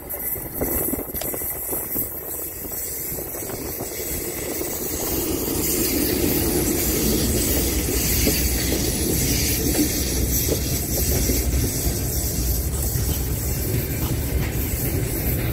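VL10 electric locomotive hauling a passenger train past at close range: the noise grows over the first five or six seconds as the locomotive draws level, then holds steady as the coaches' wheels run over the rails, with repeated clicks over the rail joints.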